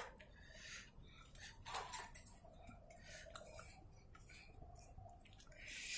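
Faint, scattered metallic clicks and clinks from a wire chick cage being handled.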